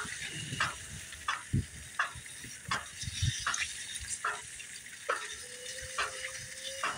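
Footsteps crunching on grass and ground at a walking pace, about one step every 0.7 s. A faint steady hum comes in about five seconds in.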